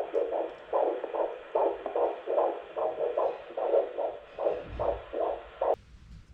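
Handheld fetal Doppler picking up the unborn baby's heartbeat: a fast, even run of whooshing pulses that cuts off suddenly near the end.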